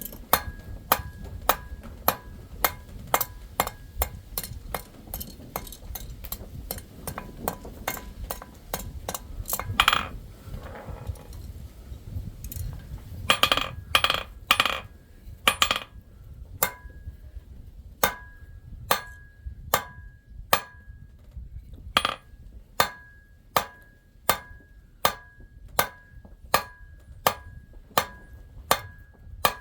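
Hand hammer striking silver on a steel anvil, each blow ringing with a short clear tone, about two blows a second. About a third of the way in the rhythm breaks for a few seconds of scraping and some louder, duller blows, then the steady ringing strikes resume, a little slower.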